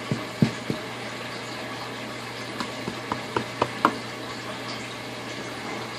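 Running saltwater reef aquarium: a steady rush of circulating, bubbling water over a low pump hum. Short light clicks come a few at a time, with a cluster near the middle.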